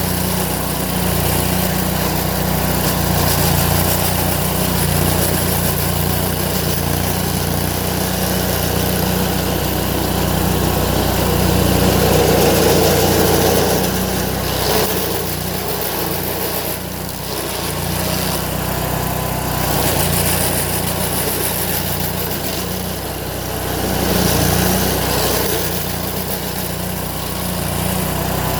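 Stump grinder engine running as its cutting wheel grinds a stump, the sound rising and falling over several seconds.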